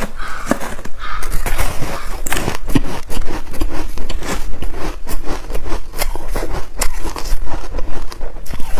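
A person crunching and chewing hard frozen ice chunks coated in buckwheat, close to the microphone: dense, irregular cracking and crackling bites.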